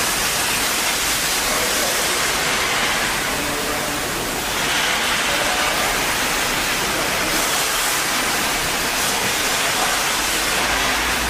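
Gantry CNC cutting machine's torch cutting steel plate: a steady, loud hiss.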